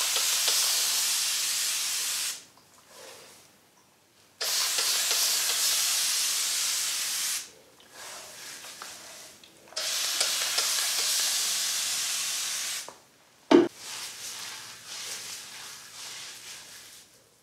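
Hand-held spray bottle misting water onto conditioner-coated hair to wet it for detangling: three long hissing sprays of about three seconds each, with short pauses between. A sharp knock follows about two-thirds of the way in, then faint rustling.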